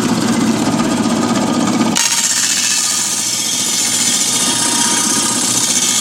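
Homemade table saw driven by a scrap washing-machine motor, running loudly while cutting 3/4 plywood. About two seconds in the sound changes suddenly, the low drone dropping away and a high hiss coming up.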